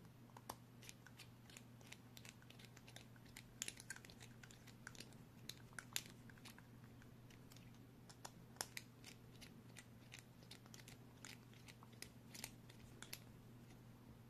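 M3x6 countersunk bolts being screwed into a 3D-printed plastic drive sprocket with a long hex driver: faint, irregular small clicks and ticks of the driver and plastic parts, over a steady low hum.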